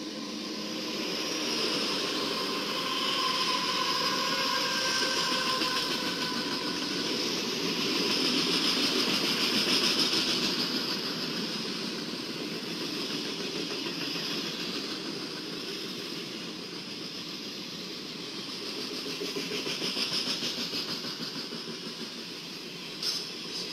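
Loaded flatcars of a freight train rolling past, a steady rumble and rattle of wheels on rail. Thin whining tones sound over it for the first several seconds, it swells to its loudest about nine seconds in, and a single sharp click comes near the end.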